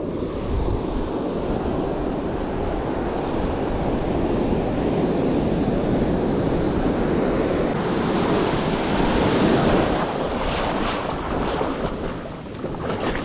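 Ocean surf washing up the shore close by, with wind buffeting the microphone.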